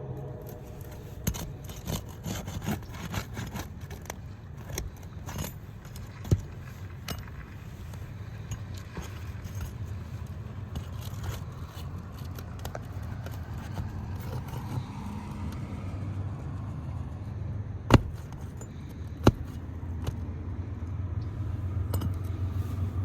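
Asphalt roof shingle tabs being pried up and popped loose from their sealant strips: scattered scraping, clicking and knocking, with two sharp snaps a little over a second apart near the end.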